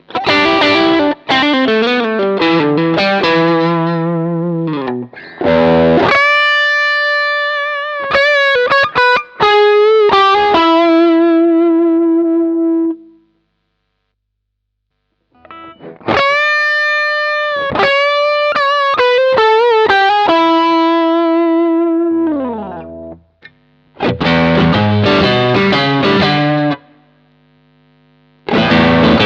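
Electric guitar played through an overdrive pedal into a cab simulator, with a mildly distorted tone. A chugging low riff opens, then long held high notes with vibrato; after a short pause the lead phrase repeats and ends in a slide down, and the low riff returns near the end.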